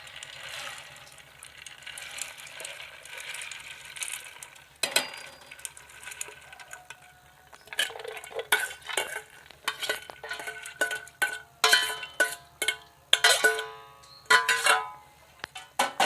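Soaked mung beans sliding from a stainless steel bowl into a steel pot of water, a steady pouring hiss for the first four seconds or so, then a knock. After that a metal ladle scrapes and knocks against the steel bowl again and again, ringing clinks, pushing out the last beans, and the bowl is set down with a knock near the end.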